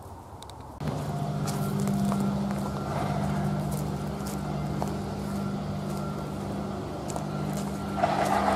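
Diesel locomotive engine running steadily at a low, even pitch. It starts abruptly about a second in, with faint clicks over it.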